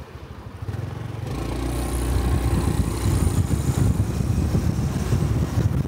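Honda 125 cc Cub motorcycle's single-cylinder engine running, quieter at first, then picking up and growing louder from about a second and a half in, with wind noise on the microphone.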